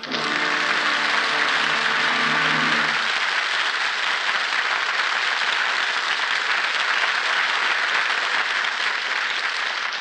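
Studio audience applauding steadily, with the orchestra's closing chord held underneath for the first three seconds.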